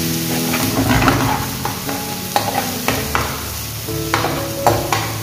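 Chopped onions and garlic frying in oil in a non-stick pan, sizzling steadily while a steel spoon stirs them, with repeated sharp clinks and scrapes of the spoon against the pan.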